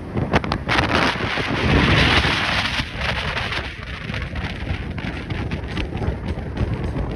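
Wind buffeting the phone's microphone over the road noise of a car driving at speed, loudest about two seconds in, with a few short knocks near the start.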